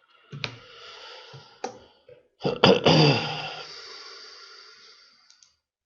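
A man's breathing close to the microphone: a drawn breath, then a long sigh with some voice in it that starts suddenly and slowly fades out.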